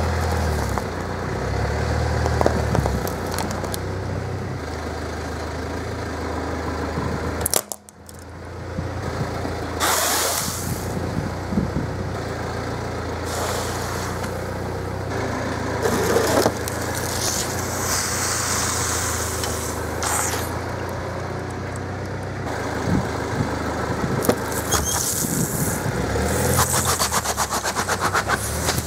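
A car's engine idling as its tyre slowly rolls over and crushes objects on paving stones, starting with a metal formula tin, with scattered crunching and crackling. The sound cuts out briefly about eight seconds in, and a quick run of crackles comes near the end.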